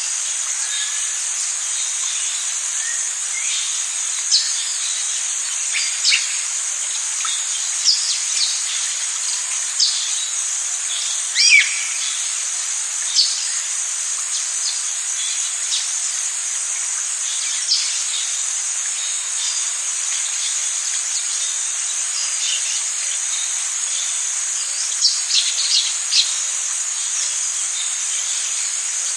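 Tropical rainforest insect chorus, a steady high-pitched drone, with short downward bird whistles and chirps every couple of seconds; the loudest call comes about a third of the way in and a quick run of chirps near the end.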